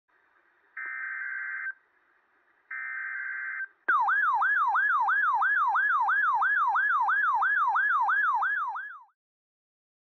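RadioShack NOAA weather alert radio sounding its alarm for a winter storm warning: two steady beeps of about a second each, then a loud warbling siren tone that sweeps up and down about three times a second and cuts off about a second before the end.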